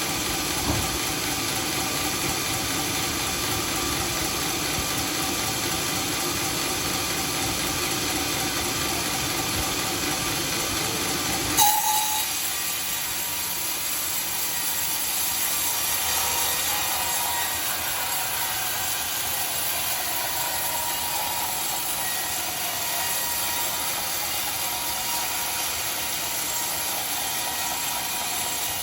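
Home-made sawmill running and cutting dry teak, a steady mechanical noise. A sharp click comes about twelve seconds in, after which the low rumble falls away and a thinner, hissing saw noise goes on.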